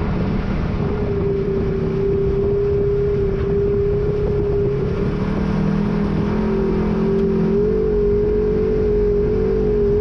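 Polaris RZR XP 1000 side-by-side's engine running at a steady cruising speed along a dirt trail, heard from on board with road and wind noise. The pitch steps up slightly about three-quarters of the way through.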